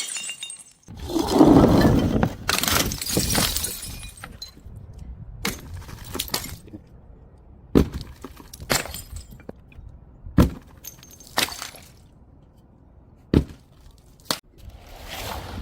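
Glass bottle smashing on stairs about a second in, followed by scattered single clinks and knocks as broken pieces tumble down the steps.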